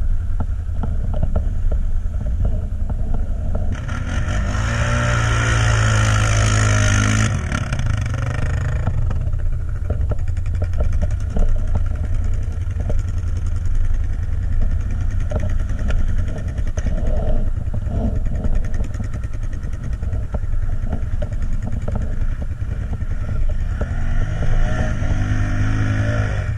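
An ATV engine running under way over a steady low rumble. It revs up, rising in pitch, for a few seconds about four seconds in and again near the end.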